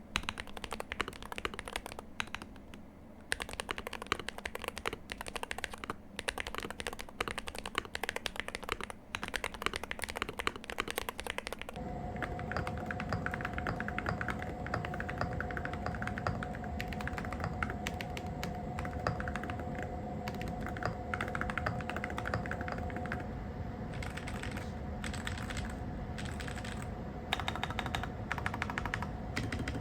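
Fast typing on a MadLions MAD60 HE Hall-effect (magnetic-switch) keyboard, a dense stream of key clacks. About twelve seconds in, the typing takes on a fuller, deeper sound, with two faint steady tones beneath it.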